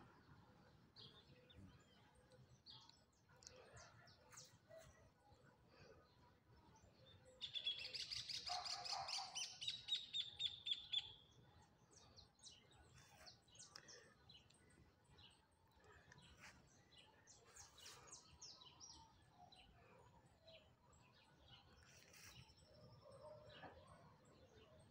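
Small birds chirping faintly here and there, with one louder burst of rapid, high twittering about seven seconds in that lasts three or four seconds.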